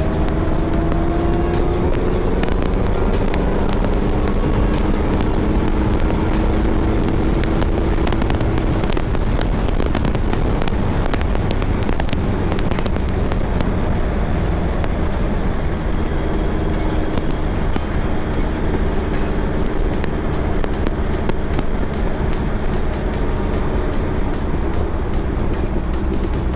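Honda CBR650F inline-four engine running under way, its pitch rising in the first couple of seconds and then holding steady, under heavy wind and road noise with scattered short clicks.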